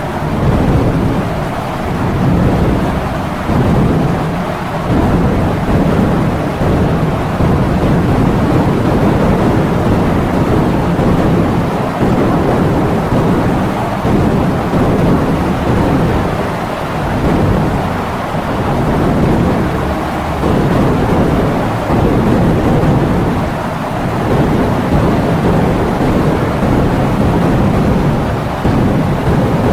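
Heavy rain with strong wind, a dense, continuous rush with deep rumble, swelling and easing every few seconds.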